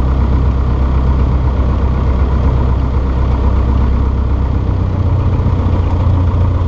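Cessna 152's four-cylinder Lycoming engine and propeller running, heard from inside the cabin as a loud steady drone. The pitch shifts slightly about five seconds in.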